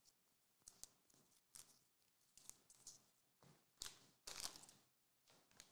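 Trading cards being handled: a series of short, faint rustles and scuffs of card against card and the mat, the longest about four and a half seconds in.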